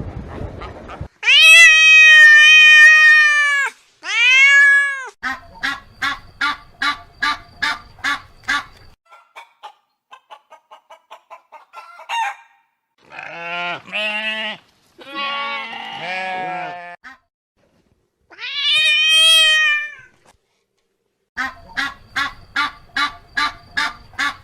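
Farm animals calling one after another: several long drawn-out calls alternate with runs of short, rapid repeated calls, with brief gaps between them.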